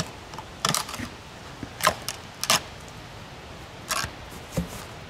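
The front shell of an RCA subwoofer cabinet being pried off with a golf club: a string of sharp cracks and snaps as it breaks loose, another crack about four seconds in, and a duller knock near the end.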